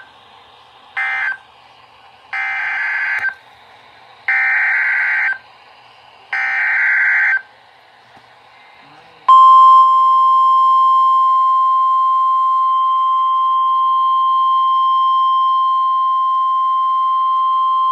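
NOAA Weather Radio alert signal: the rapid warbling data bursts of the SAME header come three times, each about a second long with about a second between them, after two shorter bursts. About nine seconds in, the steady 1050 Hz warning alarm tone starts and holds for about nine seconds, announcing the next warning.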